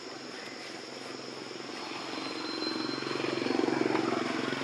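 An engine drone swells up, loudest about three and a half seconds in, then eases slightly, over a steady high-pitched hiss.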